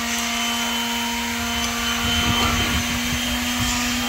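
A motor running steadily at one even pitch, with some low rumbling and knocks about halfway through.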